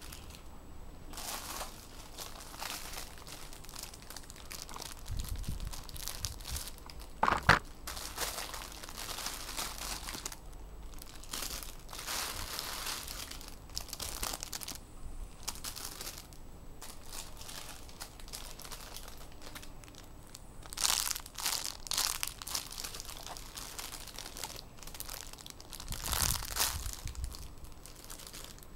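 Clear plastic bags around squishy toys crinkling and rustling as the bagged toys are handled and set down on a pile of others, irregular throughout, with a few louder brief bursts.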